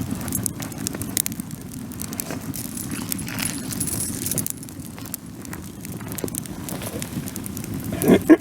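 Wood bonfire burning: a steady low rush of flames with scattered sharp crackles and pops, and a brief louder sound near the end.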